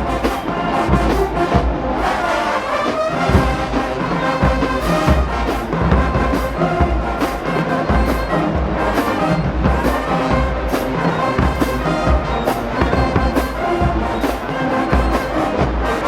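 Marching band playing: a full brass section holding sustained chords over a steady beat of bass drum hits.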